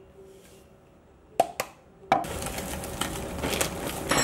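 Baking ingredients being handled: two light clicks about a second and a half in, then from about two seconds a steady crinkling rustle of a plastic bag as its contents are shaken out into a measuring cup.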